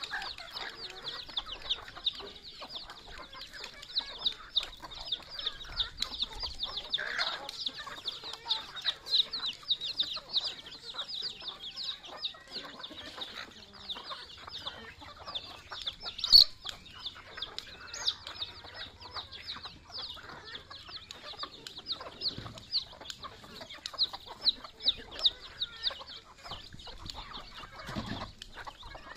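A flock of native chickens feeding: hens cluck softly under a rapid, continuous high peeping of chicks. There is a single sharp tap about halfway through.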